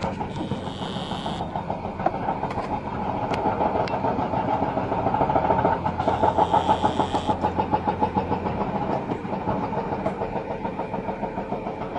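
Diesel engines of Doosan crawler excavators running with a fast, even throb that swells about halfway through and eases again. A short hiss cuts in twice, near the start and about six seconds in.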